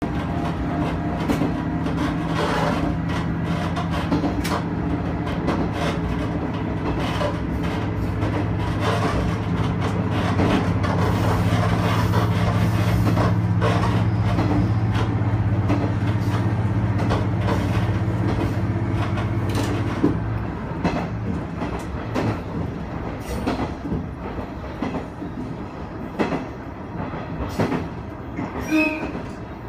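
Diesel railcar running along jointed track, heard from inside the driver's cab. A steady engine hum under power carries over the wheels clicking on rail joints. About twenty seconds in the engine note drops away and the train coasts, and there is a brief high squeal near the end.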